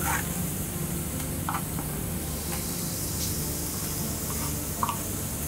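Tomatoes and peppers sizzling steadily on a hot saj griddle, with a few short clicks.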